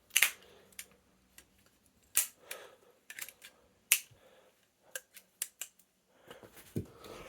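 Lego-built balisong being flipped: its handles slap and clack together in a run of sharp, irregularly spaced clicks, about a dozen in all.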